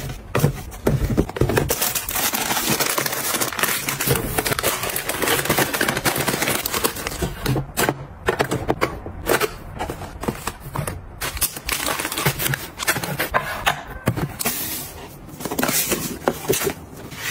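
Plastic snack packets crinkling and rustling as they are handled and stood on a shelf, with sharp clicks and light knocks as small metal tins are set down.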